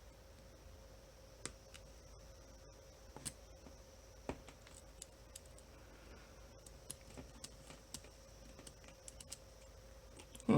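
Faint, irregular clicks and ticks of a lock pick and tension wrench working the pin tumblers in an OnGuard cable lock's cylinder, a few louder clicks standing out among the small ones.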